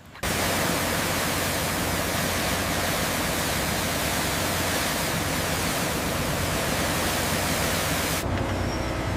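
A steady, loud rushing hiss that starts abruptly and cuts off suddenly about eight seconds in, leaving a lower, steady hum.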